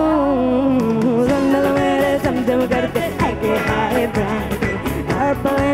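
Live Bollywood dance-pop song: a woman's lead vocal holding long, wavering notes into a microphone over a band with a steady drum beat.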